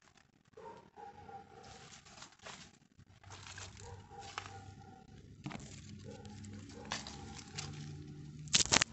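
Rustling and clicking as the phone is handled among leafy plants, with faint wavering animal calls coming and going, and a loud brief scrape just before the end.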